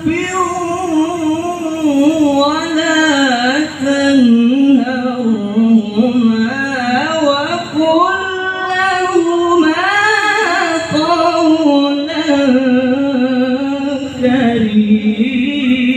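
A male qari chanting Qur'an recitation into a microphone in long, melismatic phrases, the high voice winding up and down in pitch, with a few short breaths between phrases.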